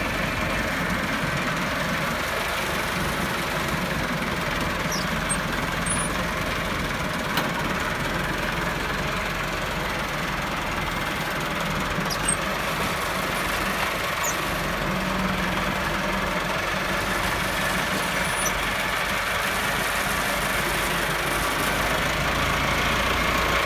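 Massey Ferguson 385 tractor's diesel engine running steadily under load as it pulls a potato digger through the soil, mixed with the digger's working noise.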